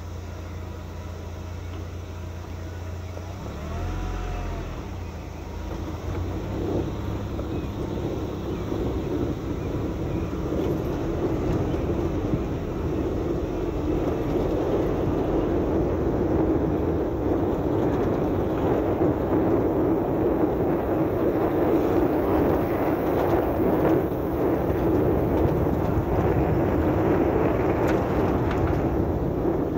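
Vehicle travelling along an unpaved dirt road, heard from on board: a low steady engine hum at first, then a rush of tyre and wind noise that grows louder over the first half and then holds steady.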